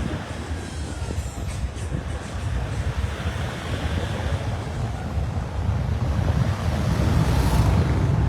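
Wind buffeting the microphone: a gusty low rumble with a hiss of noise over it, growing slowly louder.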